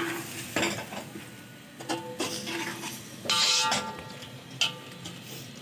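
A spoon stirring potato cubes into masala in a large metal pot, clanking and scraping against the pot several times; the loudest clank, about three and a half seconds in, rings briefly.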